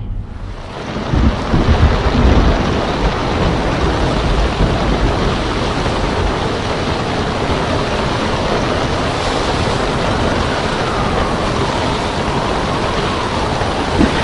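Thunderstorm at sea: a steady loud rush of rain and wind, with deep rumbles of thunder about a second in.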